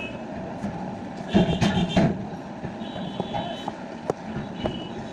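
Steady background traffic noise with short, high electronic beeps repeating at intervals and a louder passing sound about a second and a half in; a few faint small clicks.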